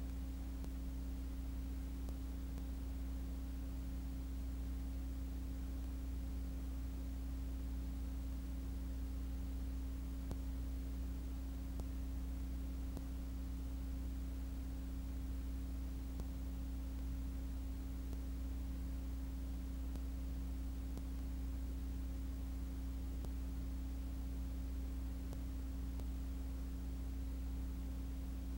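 Steady low electrical hum with a faint hiss, unchanging throughout; no engine or track sound.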